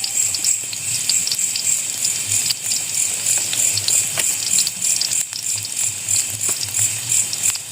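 A rhythmic, high-pitched chorus of night insects chirping steadily, with scattered small crackles and clicks mixed in.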